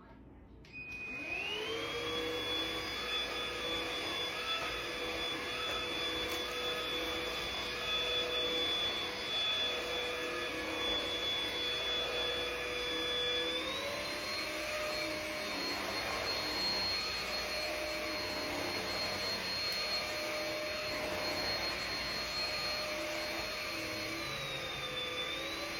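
Cordless vacuum cleaner's motor spinning up with a rising whine about a second in and running on its lower setting while it picks up carpet deodorizer powder from a rug. About halfway through it steps up in pitch to its higher setting, dipping briefly near the end.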